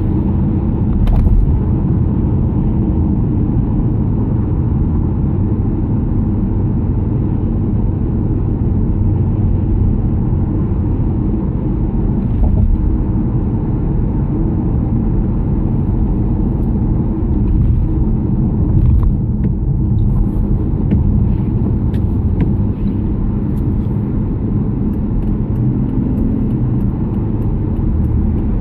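Car cabin road and engine rumble at steady motorway speed, heard from inside the car. A few faint ticks come through in the second half.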